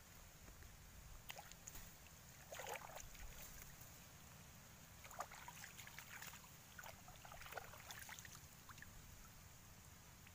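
A few faint, short splashes and sloshes of shallow pond water stirred by a hand, spaced a few seconds apart.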